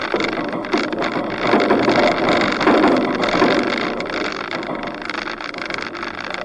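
Four-wheel drive travelling along a dirt bush track, heard from a camera on its roof rack: a steady rush of wind and road noise with no clear engine note, swelling about a second and a half in and easing after a few seconds.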